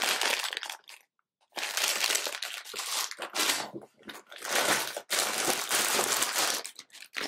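Clear plastic bag of VEX IQ construction parts crinkling and crackling as it is handled, in repeated bursts with a short pause about a second in.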